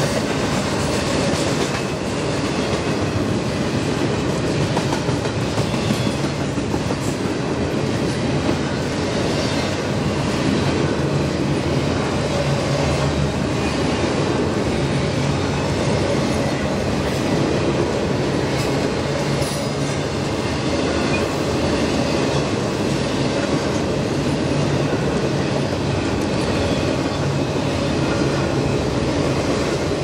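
Double-stack intermodal well cars rolling past, a steady rumble of steel wheels on rail with light clicking from the trucks.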